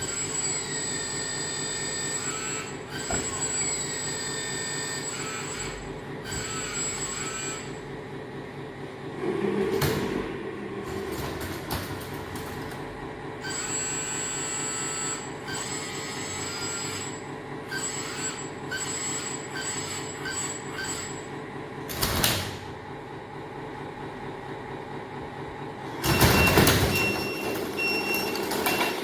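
Electric motors and hydraulic pump of a 1:15 scale RC hydraulic bulldozer running, a steady hum under high-pitched motor whines that rise, fall and step as it is driven. Short harsh bursts come twice, and a louder, rougher stretch comes near the end.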